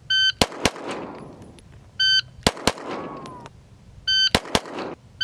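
Shot timer beeps, then two quick pistol shots about a fifth of a second apart, each with a short echo; the beep-bang-bang sequence happens three times, about two seconds apart. It is a timed two-shot drill where each shot must come in under 0.3 s.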